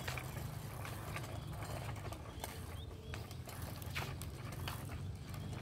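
Bicycle rolling on pavement: a steady low rumble with scattered clicks and rattles, the kind a freewheel and loose bike parts make.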